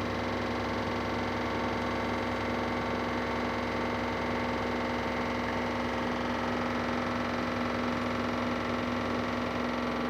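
LG washing machine on its spin cycle: a steady motor hum with a fine rapid tapping under it. The owner hears this tapping only when a balanced load spins and does not know its cause.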